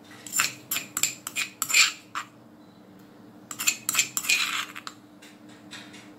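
A metal spoon scraping and clinking against the inside of a granite mortar as it scoops out coarsely pounded garlic. The scrapes and taps come in two quick bursts, one in the first two seconds and one around the middle.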